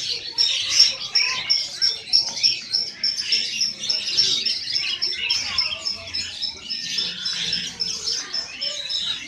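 Many caged songbirds chirping and singing at once, a dense chorus of overlapping calls. One bird repeats a short high note evenly, about three times a second, over the top.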